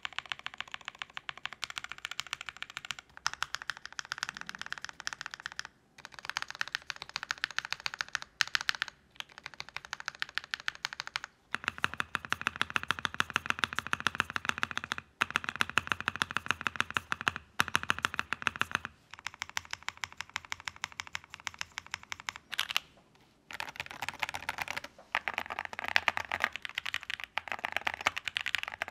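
Mechanical keyboard typing: a GEON F1-88 aluminium board with JWK ALS linear switches (nylon housings, POM stems, lubed with Krytox 205g0), an FR-4 plate and PBT keycaps. Fast, continuous keystrokes come in runs of a few seconds, with brief pauses between them.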